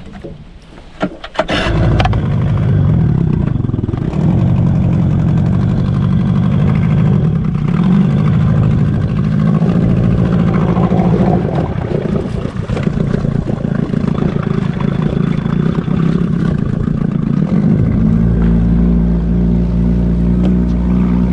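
A few clicks, then the boat's outboard motor starts up about two seconds in and runs steadily under way. Near the end its note shifts and gets deeper.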